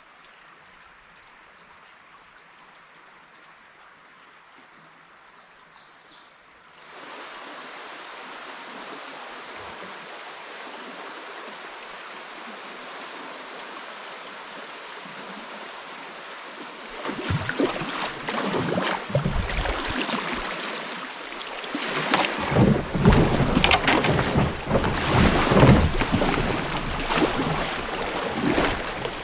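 Rushing water of a shallow river riffle as a canoe paddles into it. It starts faint with a steady high insect drone, steps up about seven seconds in, and grows louder and rougher over the last dozen seconds with wind buffeting the microphone.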